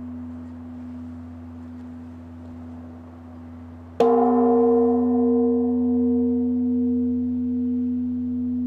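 Large Korean Buddhist temple bell (beomjong) struck once with its hanging wooden log about four seconds in. It rings on with a deep hum and several higher overtones that slowly fade. Before the strike, the low hum of the previous stroke is still sounding.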